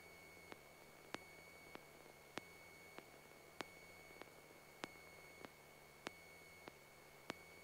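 Near silence on an aircraft radio audio feed between transmissions: faint sharp clicks about every 0.6 seconds over a faint steady high-pitched tone.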